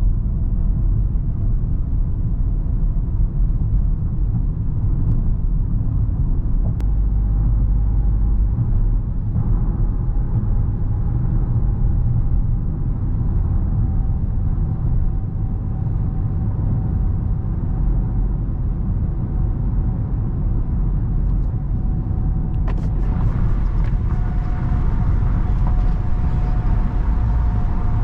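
Dodge Charger R/T's 5.7-litre Hemi V8 running steadily while the car is driven, a low rumble mixed with road noise. About 23 seconds in there is a short click, and more hiss follows.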